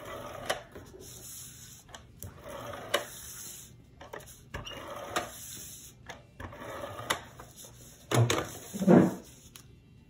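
A handheld tape-runner adhesive dispenser drawn along the edges of a paper frame in several short strokes, each a scratchy whirr with clicks as the tape is laid. Two louder dull thumps come near the end.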